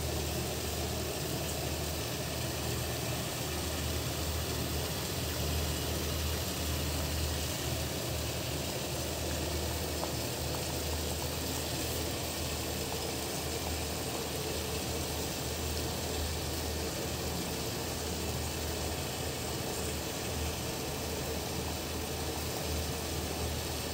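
A steady low hum, uneven at the bottom, with an even hiss over it, like a running motor or appliance.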